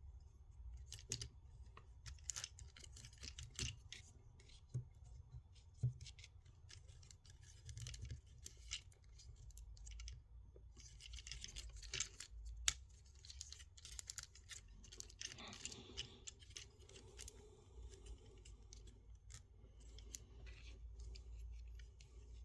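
Faint, irregular clicks and scrapes of plastic parts as a Transformers action figure is handled and its joints are folded during transformation.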